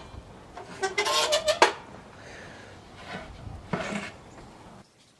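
Freshly cut plywood pieces being handled at the table saw, knocking and clattering with a brief ringing, the sharpest knock about one and a half seconds in, then a couple of fainter knocks.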